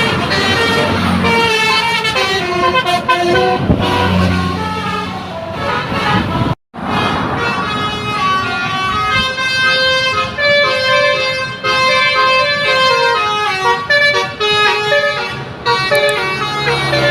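Tour bus's telolet basuri multi-tone horn playing a tune, note after note. It cuts off abruptly about six and a half seconds in, then starts another run of notes.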